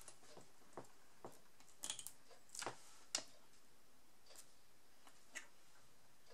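Faint, irregular clicks and taps of a fine pointed craft tool against a plastic sheet of adhesive half-pearls and the cutting mat, as a small pearl is picked up and placed. The sharpest click comes a little after three seconds in.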